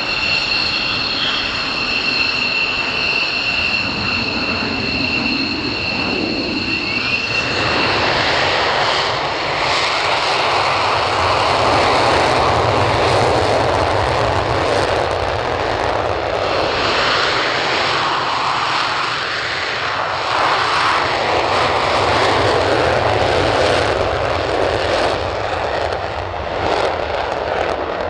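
F-16 Fighting Falcon jet engines (Pratt & Whitney F100 turbofans): for about the first seven seconds a taxiing jet's steady high-pitched whine over a low rumble. Then loud afterburner takeoff noise, a rushing roar that swells and fades as the jets run down the runway.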